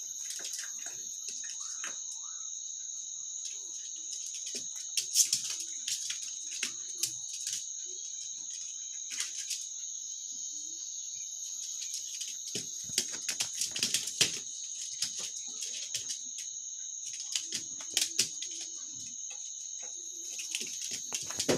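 Steady high-pitched chirring of crickets, with scattered sharp clicks and taps over it, the loudest about 5 and 14 seconds in.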